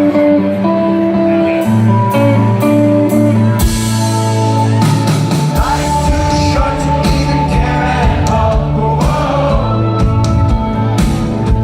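Rock band playing live, with singing: held chords over a bass line. Drums come in about two seconds in and hit harder from about five seconds on.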